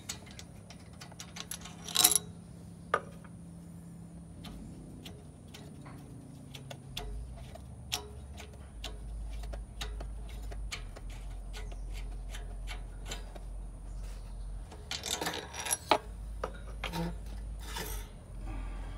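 Small metallic clicks, taps and rubbing of hands and a tool working at the carburetor linkage on a small single-cylinder generator engine. Louder clusters of clicks come about two seconds in and again around fifteen to sixteen seconds, with a low rumble from about seven seconds on.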